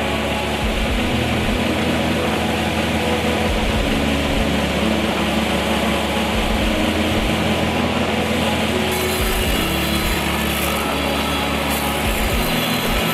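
Combination belt-and-disc sander running steadily while workpieces are ground against its sanding belt, the grinding getting harsher about nine seconds in. Background music with shifting bass notes plays underneath.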